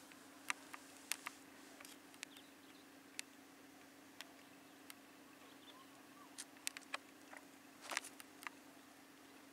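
Faint, irregular sharp clicks and taps over a steady low hum, with a quick cluster of clicks about eight seconds in.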